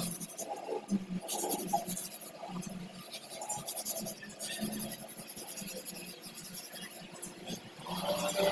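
Irregular scratching and scraping strokes, with a faint squeal starting near the end.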